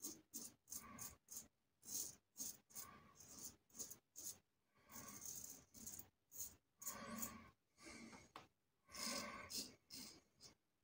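Parker Variant double-edge safety razor with a Sputnik blade scraping through lathered stubble: a faint run of short strokes, several a second, with a few longer strokes.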